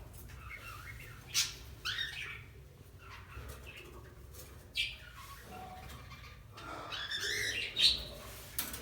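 Budgerigar chicks chirping and squawking in short, scattered calls, with a few sharper, louder squawks.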